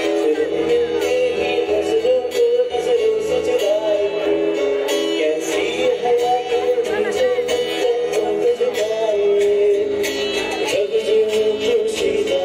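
Live band music: a singer's sustained, wavering vocal line over acoustic guitar, bass guitar and a cajon beat, heard from the audience in a hall.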